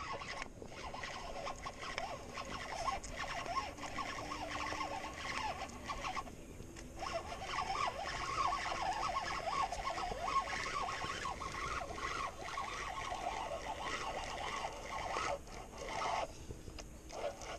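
Dense, irregular chattering of animal calls, with brief lulls about six seconds in and near the end.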